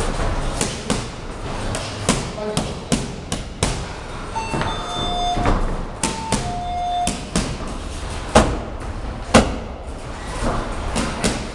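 Punches and kicks smacking into Thai pads and focus mitts in an irregular series of sharp slaps, with two heavier strikes about a second apart late on. A couple of brief squeaky tones sound midway.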